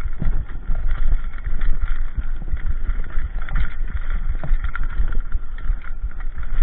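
Mountain bike riding downhill over a rough, stony dirt trail: a steady low rumble with frequent irregular knocks and rattles as the bike and camera jolt over the bumps.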